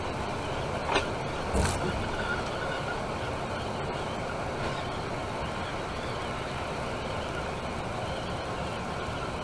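Temsa Maraton coach cruising on a motorway: steady road and engine noise inside the moving bus, with two short sharp knocks a little over a second in.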